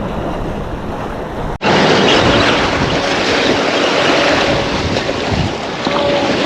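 Strong wind buffeting the camera microphone over the wash of water, a steady rushing noise. About a second and a half in, it cuts out for an instant and comes back louder and hissier.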